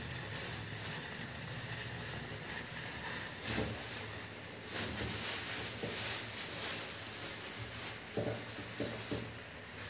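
Pan of masala chai, water with tea leaves, crushed spices and ginger, simmering on the stove in a steady hiss, with a few faint taps about a third of the way in and near the end.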